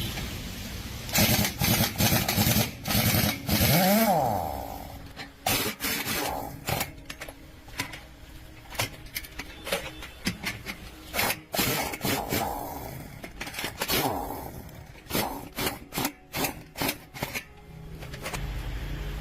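Tool work: a run of scraping and knocking strokes, densest and loudest in the first few seconds, with a few brief sweeping whines among them.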